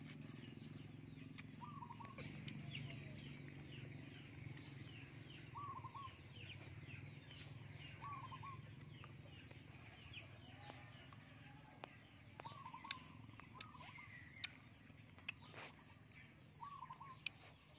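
Faint birds chirping, with a short wavy call repeating every two to three seconds, over a low steady hum and a few light taps.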